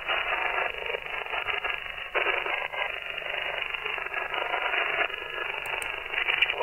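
Upper-sideband receiver audio from a software-defined radio on the 27 MHz CB band: a steady hiss of static cut off above about 3 kHz. Its character changes abruptly a couple of times as the receiver is tuned across the band.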